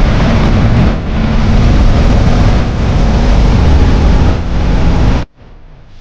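Fishing boat running at speed: loud engine and wind rumble over the microphone, which cuts off abruptly about five seconds in.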